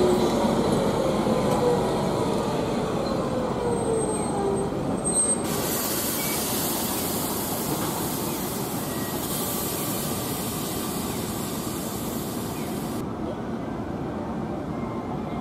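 A Toyama city tram running past and away, its motor whining with a slowly gliding pitch for the first few seconds, then fading into steady street noise. About a third of the way in, a high hiss starts and cuts off abruptly near the end.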